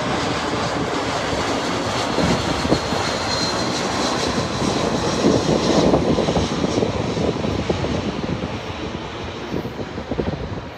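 Airbus A320 jet airliner passing low overhead on approach with its landing gear down, a steady jet roar with a faint high whine. It is loudest about halfway through, then fades as the plane moves away.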